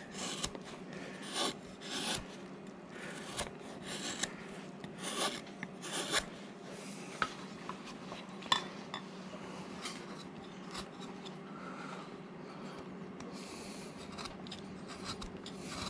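Swiss-made #3-sweep, 25 mm carving gouge pushed by hand through a hard wooden carving blank: irregular short scraping cuts, roughly one a second. A faint steady hum runs underneath.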